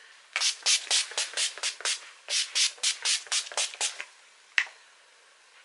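Skindinavia Bridal Finishing Spray's pump mister spritzed rapidly onto the face: short airy hisses, about four or five a second, in two runs of roughly eight, then one last spritz a little later, setting the powder.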